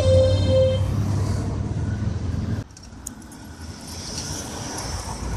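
Last held notes of an electronic keyboard through a small amplifier fading out over about a second above a low hum. A little over two and a half seconds in the sound drops suddenly to quieter street ambience with traffic and a few light clicks.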